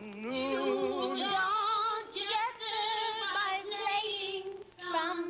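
A woman singing long held notes with a wide vibrato, in two or three phrases with short breaks between them.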